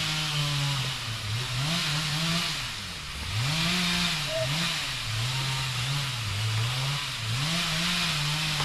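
Chainsaw engine revving up and dropping back over and over, its pitch rising and falling every second or so, as when the saw is working through wood.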